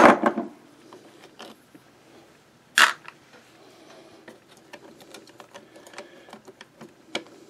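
Small metallic clicks and ticks from the underside mechanism of a Singer 192K sewing machine being worked by hand as the feed dog is freed for removal, with one louder clack about three seconds in and another click near the end.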